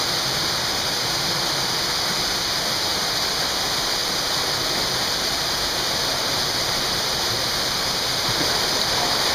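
Small waterfall cascading down a narrow rock slot canyon: a steady, even rush of falling water.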